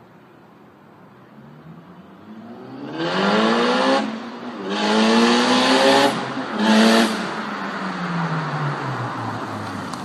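Mitsubishi Lancer Evolution's turbocharged inline-four accelerating hard toward the listener, the revs climbing through three gears with short breaks at each upshift. After the third it lifts off, and the engine note falls steadily as the car coasts closer.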